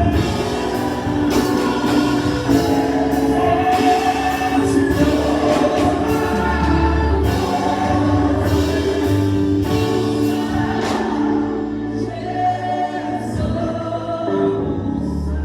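Gospel choir and congregation singing a slow worship song over a band with steady bass.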